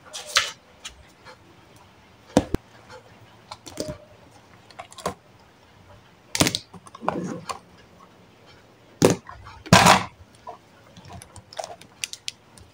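Pens, highlighters and paper being handled on a desk: scattered clicks and taps of plastic pens set down and picked up, with short rustles of paper and book pages.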